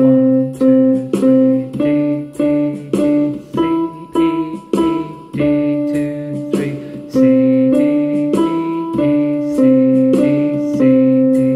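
Yamaha portable electronic keyboard playing a simple melody in three time over its built-in waltz-style auto-accompaniment, with a steady drum beat and a held low chord at about 100 beats a minute.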